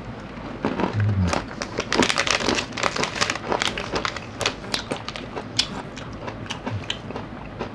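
Crinkling and crackling of a small plastic snack wrapper being handled and torn open, densest from about one to five seconds in. Near the end it gives way to the sparser crackle of chewing.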